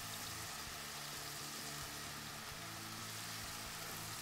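Ground meat with green peppers, mushrooms and sliced onion sizzling steadily and quietly in a frying pan, browning for a bolognese sauce.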